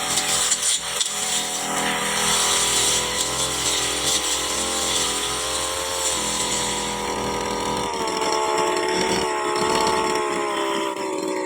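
Brush cutter engine running at high revs, its whine wavering as the load changes while cutting grass and brush. From about seven seconds in it runs steadier with a clearer whine that eases down slightly near the end.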